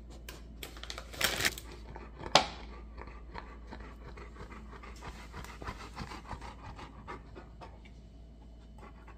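Bernese mountain dog panting steadily, with small wet mouth clicks. A short loud rush of noise comes about a second in, and a single sharp click a second later.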